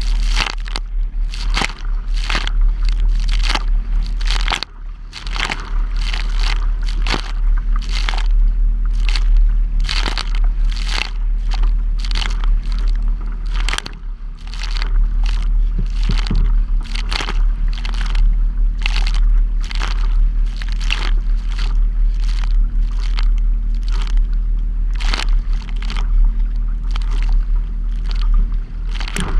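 Choppy lake water slapping and splashing against a plastic kayak hull in quick, uneven hits, about two a second. Under them runs a steady low rumble of wind on the microphone.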